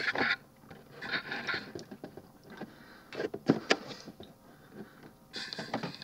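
Plastic parts of a transforming toy robot figure being handled and fitted together: soft rustling with a few sharp clicks and snaps, the clearest of them a little past the middle.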